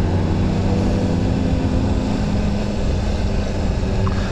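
Honda CBR sport motorcycle engine running at a steady cruise, a continuous drone, with wind rushing over the rider's microphone.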